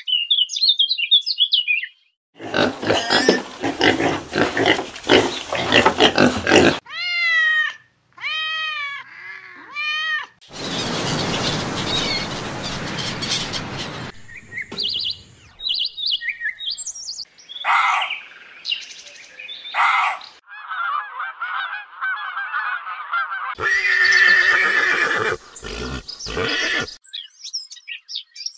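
A run of different animal calls, one clip after another: bird chirping, long noisy calls, three short calls that rise and fall in pitch, and more chirps and calls.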